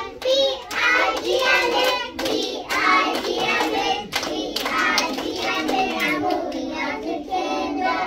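A group of young children singing a song together, with hand claps.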